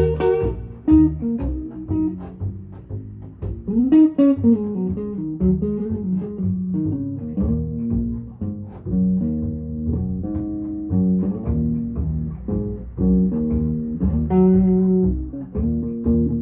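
Guitar music: a run of plucked guitar notes over a low bass line, with one note sliding up in pitch about four seconds in.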